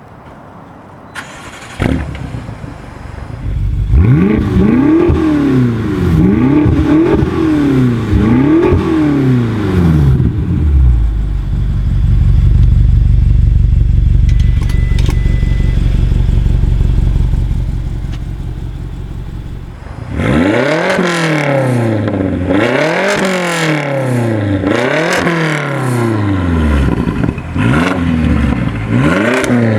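BMW X5M/X6M S63 4.4-litre twin-turbo V8 through a Dinan exhaust, revved in a series of quick blips, then holding a steady low drone, then blipped again several times in quick succession.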